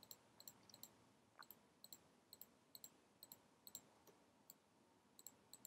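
Faint computer mouse clicks, an irregular run of about a dozen, many in quick press-and-release pairs, from selecting mesh vertices one by one.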